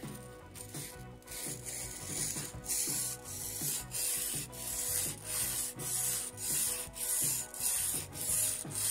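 Steel plane iron rubbed back and forth on the coarse side of a wet two-grit sharpening stone, a gritty hiss with each stroke. The strokes are light and uneven at first, then settle after about two and a half seconds into a steady rhythm of about two a second.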